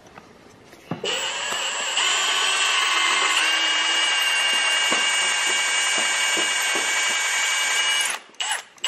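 Cordless drill running steadily as a small bit drills into a broken head bolt stuck in an engine block, making the pilot hole for a screw extractor to bite into. The whine starts about a second in and cuts off about a second before the end, followed by a couple of short knocks.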